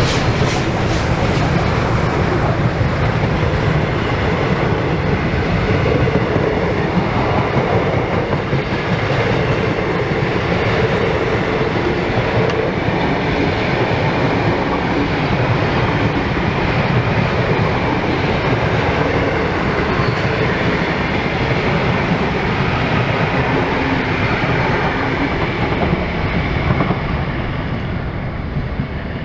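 Double-headed R class steam train passing at speed: rapid steam exhaust beats from the second locomotive in the first second, then the steady rumble and clickety-clack of the carriages rolling by, thinning slightly in the last couple of seconds as the end of the train passes.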